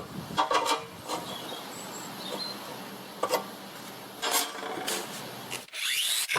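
Workshop handling noises: several light clinks and knocks of small metal parts, with a short scraping rush near the end.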